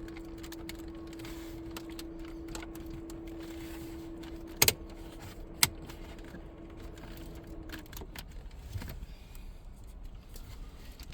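Plastic dash trim clips on a Ram truck's radio bezel being pulled loose: small clicks and rattles of handled trim, with two loud sharp snaps about a second apart around the middle as clips pop free. A steady hum runs underneath and stops about eight seconds in.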